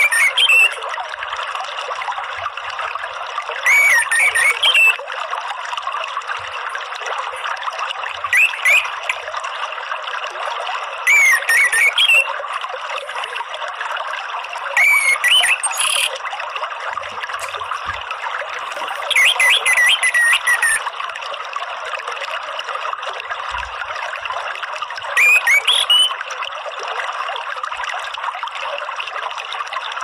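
Orange-headed thrush song: short whistled phrases, about seven in all, repeated every three to five seconds over a steady background of running water.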